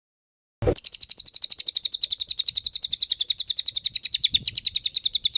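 A songbird singing a rapid machine-gun trill: short, high, downward-sweeping notes repeated about thirteen times a second, starting abruptly about half a second in and running without a break for over four seconds.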